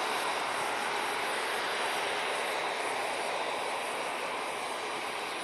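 Airbus A319-111 with CFM56 turbofan engines on final approach, heard from a distance as a steady rushing jet noise with no distinct whine, easing off slightly.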